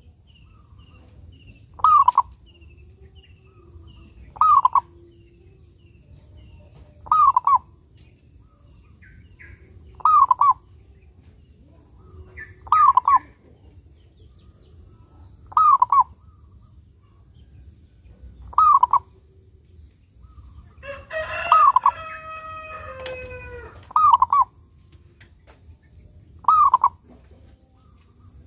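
Zebra dove (perkutut) cooing, a short clear two-note phrase repeated about every two and a half to three seconds, ten times. A rooster crows more quietly behind it about 21 seconds in.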